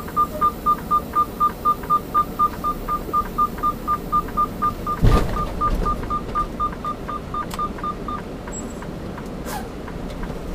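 Freightliner tractor's reverse warning beeper sounding steadily, about four high beeps a second, while the truck backs under a trailer. The beeping stops about eight seconds in. A single heavy thump about five seconds in is the tractor coupling up to the trailer.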